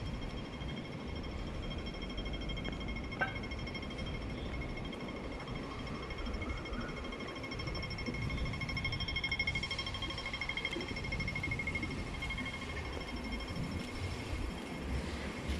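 Hong Kong pedestrian crossing's audible signal beeping rapidly on a high pitch, the quick pace that marks the green man, over the low hum of street traffic. A single sharp click comes about three seconds in.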